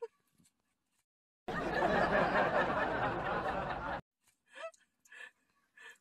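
A burst of canned laughter, a sound effect added in editing, lasting about two and a half seconds and cutting in and out abruptly. Faint dog whimpers follow near the end.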